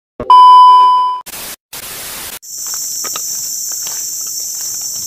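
TV test-pattern transition effect: a loud steady beep for about a second, then two short bursts of static hiss. About two and a half seconds in, forest ambience takes over, with insects buzzing steadily at a high pitch and light crackles of footsteps on leaf litter.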